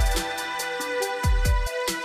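Electronic background music with a steady beat: deep kick-drum hits, quick ticking hi-hats about four to a second, and held synth notes.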